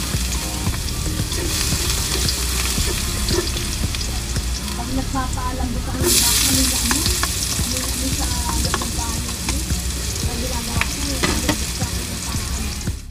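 Minced garlic sizzling in hot oil in a wok; about six seconds in, chopped onions are added and the sizzle turns louder as they are sautéed together and stirred with a spatula.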